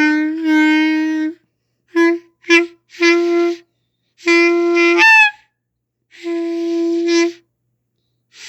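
A clarinet blown by an unskilled player, sounding the same note about six times in short and long blasts with silent gaps between. About five seconds in, one note breaks into a squeak that falls sharply in pitch.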